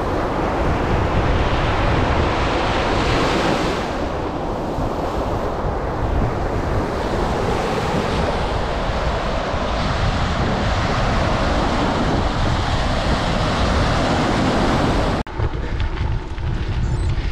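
Loud wind buffeting the microphone outdoors, a gusty rush heaviest in the low end. It cuts off abruptly about fifteen seconds in, and a thinner, quieter rush follows.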